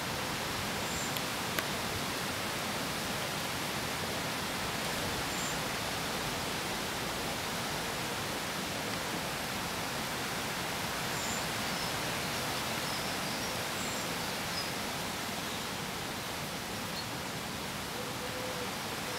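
Steady outdoor background hiss with no distinct nearby source, and a few faint, brief high-pitched chirps now and then.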